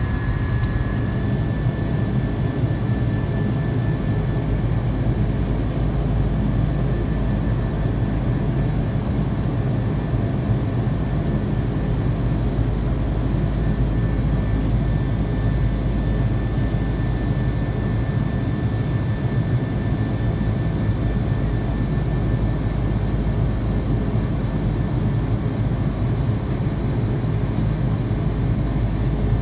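Jet engines of an Airbus A330-300 airliner running, a loud, steady rumble with a faint, thin whine over it.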